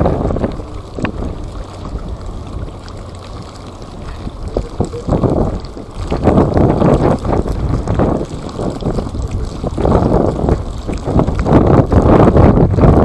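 Wind buffeting the microphone in gusts, easing off for a few seconds and then blowing hard again about six seconds in.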